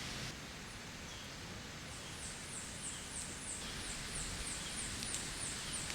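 A rapid series of high, thin, falling chirps, about three a second, starting about two seconds in, over a steady background hiss.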